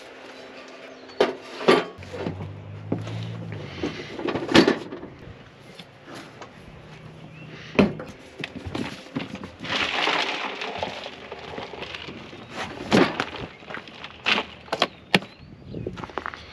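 Gear being handled and moved about in the cramped camper: irregular knocks and clatter, the sharpest about a second and a half in and again about four and a half seconds in.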